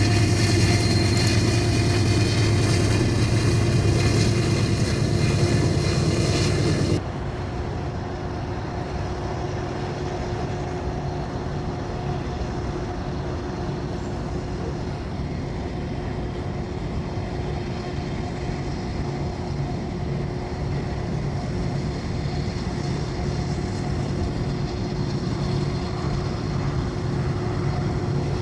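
Diesel-electric freight locomotives running under power, a steady engine drone with a few held tones. It is louder and brighter for about the first seven seconds, then drops suddenly to a quieter, steadier drone.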